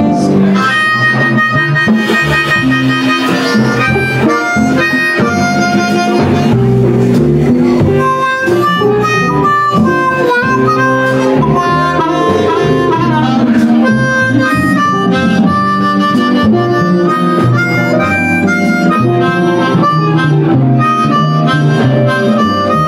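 Blues harmonica solo played into a vocal microphone, mostly held notes with a few bent ones, over electric guitar accompaniment.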